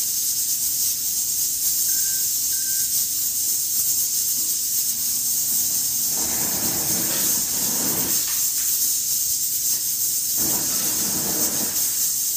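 Steady high-pitched hiss, with two muffled noises about six and ten seconds in.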